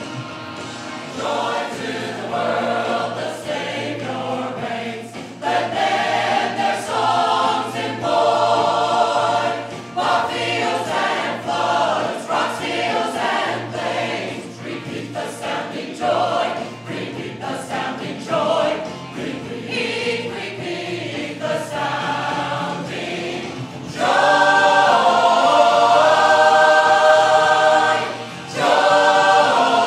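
Church choir singing, with a man singing into a microphone at the front. Near the end the full choir comes in much louder, stops for a moment and comes back in.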